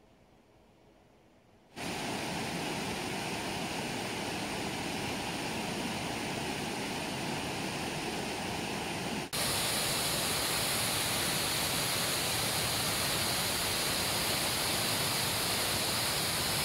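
Rushing water of a rocky forest river's rapids, a steady even roar that comes in suddenly about two seconds in. About nine seconds in it switches to a louder, hissier white-water cascade.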